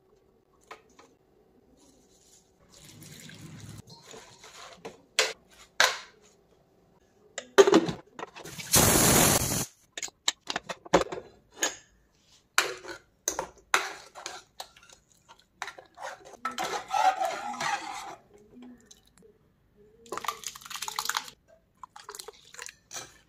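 Kitchen cooking sounds around an aluminium pressure cooker and a pot of dal: a string of metal clinks and knocks from pots and utensils, a loud rushing hiss lasting just over a second about nine seconds in, and liquid poured into the dal near the end.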